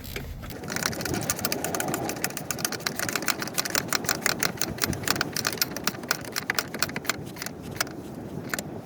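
Socket ratchet clicking rapidly as the battery hold-down bolt is tightened, starting about half a second in.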